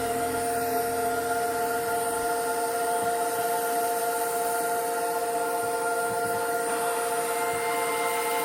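Steady whine and hiss of a small machine, holding several even tones without change.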